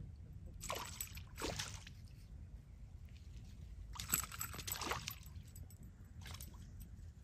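A hooked snakehead fish thrashing at the water's surface as it is landed: several short splashes, the biggest burst about four seconds in.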